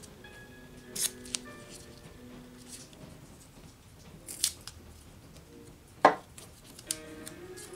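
Blue painter's tape being torn into small pieces and pressed onto small metal journal boxes: a few short rips and rustles, with a sharper, louder knock just after six seconds in.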